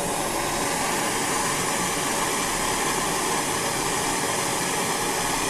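Jeweller's mini soldering torch, a Smith Little Torch, burning with a steady hiss while soldering a sterling silver jump ring closed.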